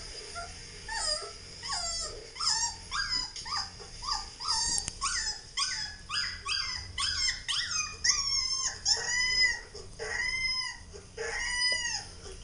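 Husky puppy whining and yelping through a laptop's speaker: a quick string of short, high cries, about two or three a second, that become longer cries rising and falling, like small howls, from about two-thirds of the way in.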